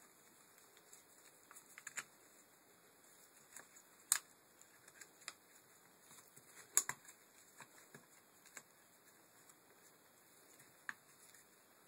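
Scattered light clicks and knocks of plastic and metal parts as a car window regulator's motor and gear housing are handled and fitted together by hand, with two sharper clicks about four and seven seconds in.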